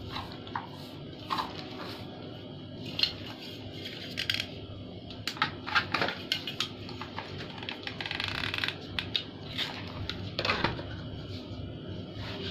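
Scattered light clinks, taps and rustles as a metal gas-stove burner plate, a hot glue gun and thread are handled on a tabletop, with a cluster of sharper clinks around the middle.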